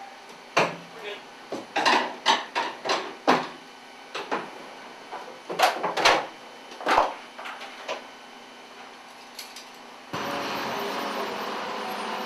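Sharp metallic clanks and knocks, a dozen or so in quick irregular runs, from metal equipment being handled. About ten seconds in, a steady aircraft engine noise starts abruptly.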